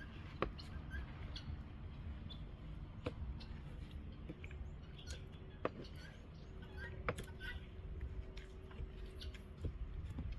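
Firewood cooking fire crackling, with a few sharp pops a couple of seconds apart over a low steady rumble.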